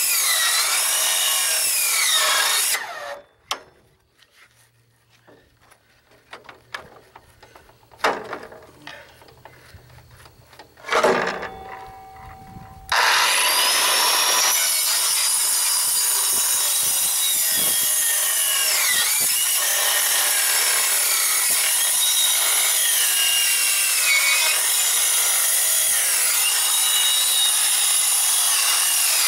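Handheld circular saw cutting through the thin metal top of a boat fuel tank: a loud, harsh cutting noise whose pitch wavers as the blade loads and frees. It stops about three seconds in, leaving a few clicks, spins up briefly around eleven seconds, and resumes cutting at about thirteen seconds, slowly enough that the cutter takes the blade to be getting dull.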